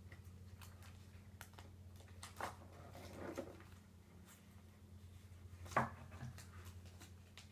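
Faint handling noises from a small card binder being worked at by hand: a few light clicks and rustles, with one sharper click about six seconds in. A low steady hum runs underneath.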